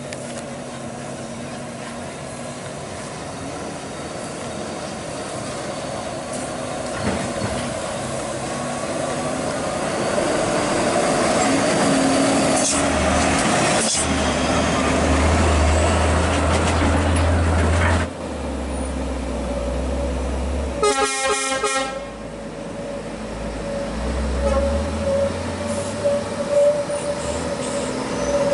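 Loaded heavy trucks' diesel engines pulling up a hill: the rumble builds as a Hino 500 self-loader truck approaches and passes close by, then builds again as a Scania tractor unit comes up with a steady whine. About three-quarters of the way through, a truck horn toots briefly.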